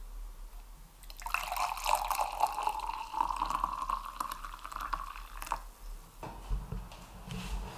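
Coffee poured from a glass coffee-maker carafe into a ceramic mug, starting about a second in, the pitch of the stream rising slowly as the mug fills; the pour stops suddenly about five and a half seconds in.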